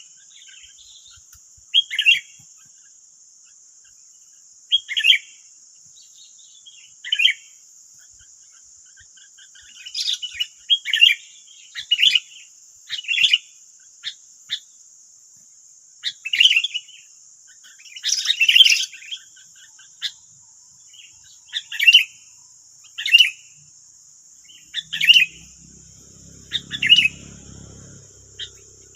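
Sooty-headed bulbuls calling: short, bubbly chirping phrases, one every second or two, with a steady high-pitched hum underneath. A brief low rumble comes near the end.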